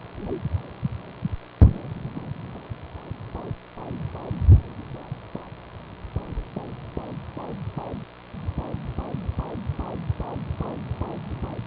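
Fetal heartbeat on an ultrasound machine's pulsed-wave Doppler: fast, evenly repeating whooshing pulses of blood flow, a little over two a second, from a fetus at five months. The beat is less regular in the middle. Two heavy thumps break in, about one and a half and four and a half seconds in.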